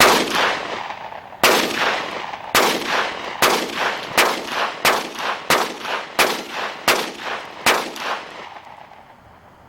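About ten gunshots fired one after another, roughly one every 0.7 to 1 second, each with an echoing tail.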